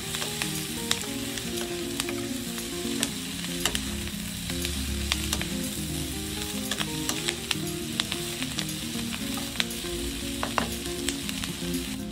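Pork belly, onions and red and green bell peppers sizzling in a hot wok while a spatula stirs and tosses them, with frequent sharp clicks throughout.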